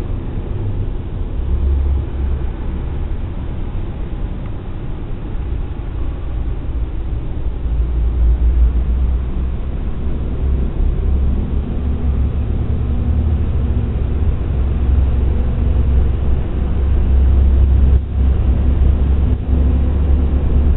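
Road and engine rumble heard inside a car's cabin while driving through a road tunnel with traffic ahead: a steady low drone that grows somewhat louder partway through.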